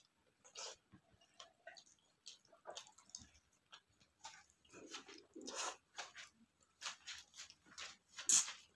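Close-up eating sounds of squid adobo eaten by hand: wet chewing, lip smacks and mouth clicks in an irregular run, with a louder smack near the end.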